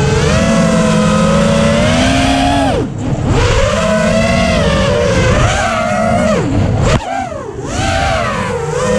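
Hobbywing 2405 2250kv brushless motors spinning HQ 6030 three-blade props on a 6-inch FPV quadcopter, a loud whine that rises and falls with the throttle. About three seconds in and again about seven seconds in the throttle is chopped, the pitch drops away, then it climbs back as the power comes on again.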